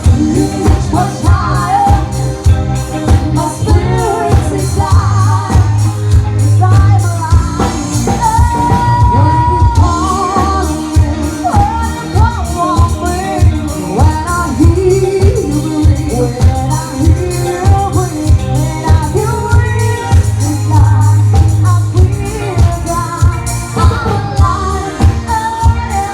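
A band playing a pop song with a steady beat and heavy bass, with a woman singing over it.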